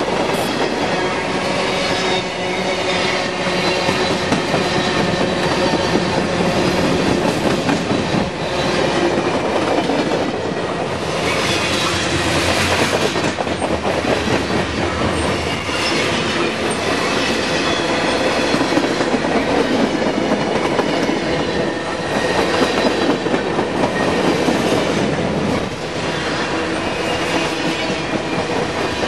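Freight cars of a CSX freight train passing close by: a steady clatter and rumble of steel wheels on the rails, with brake shoes squealing as the train slows under braking. The noise swells and eases a few times.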